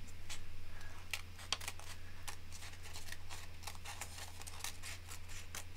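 Scissors cutting around a paper pattern in short snips: a run of quick, irregular clicks, with a low steady hum underneath.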